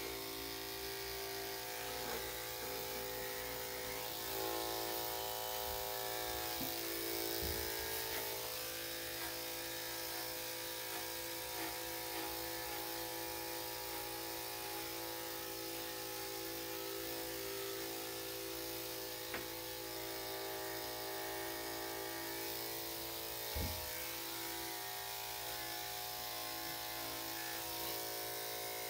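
Electric dog grooming clippers running steadily with an even buzzing hum as they shave the coat. There is a short soft knock about three-quarters of the way through.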